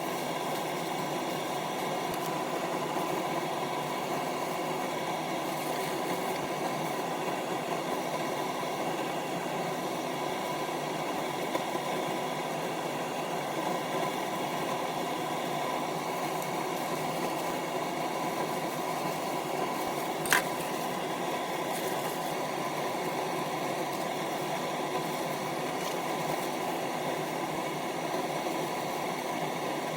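A steady mechanical hum, with one sharp click about twenty seconds in.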